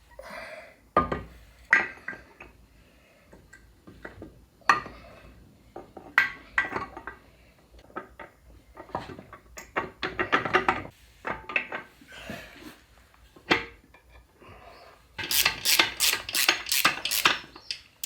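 Steel gears and shafts of a Land Rover Series gearbox clinking and knocking against each other and the casing as the assembly is worked into place, in irregular knocks with a quick run of about eight clicks near the end.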